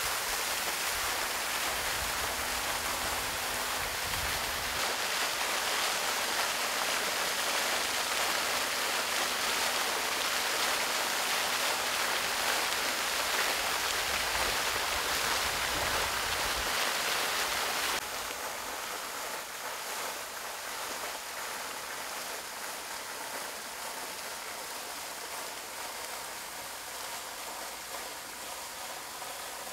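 Steady rush of running water, like a stream or waterfall, with a faint low hum under it at first. About two-thirds of the way through it drops abruptly to a quieter, thinner rush.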